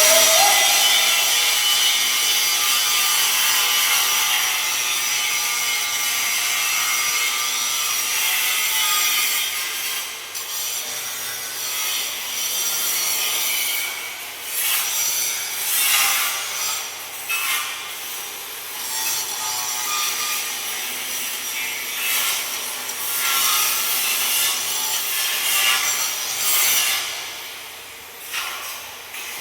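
Angle grinder working metal to finish a welded job: a steady, harsh grinding for the first ten seconds or so, then shorter passes that start and stop.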